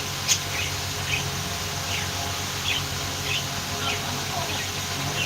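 Budgerigars chirping: short, high chirps every half second or so, the sharpest just after the start, over a steady low hum.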